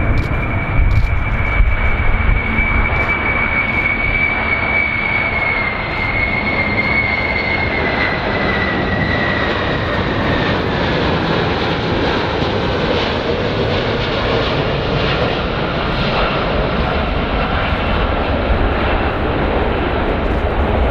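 Large airplane's jet engines running, with a high whine that slowly falls in pitch over a loud, steady rumble.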